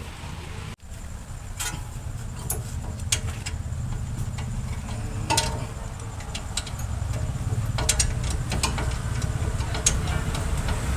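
A steady low mechanical rumble with scattered sharp clicks and taps over it.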